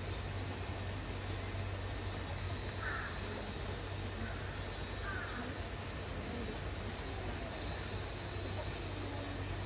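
Steady outdoor background hiss, with two faint short bird calls about three and five seconds in.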